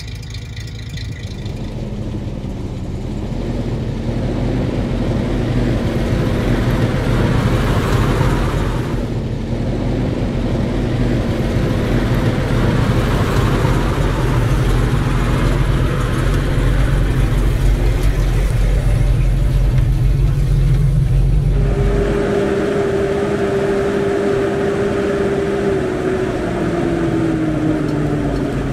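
1945 Mack NO 7.5-ton prime mover's six-cylinder gasoline engine running as the truck drives, growing louder over the first few seconds as it comes close. About two-thirds of the way through, the deep rumble drops away and a steady whine takes over, falling in pitch near the end.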